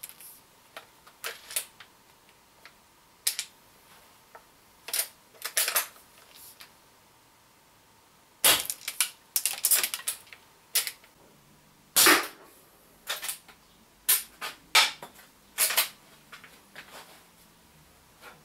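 Umarex Legends Cowboy CO2 lever-action rifle firing shot after shot through a chronograph: about ten sharp shots, irregularly spaced, with quieter clicks between them from working the action.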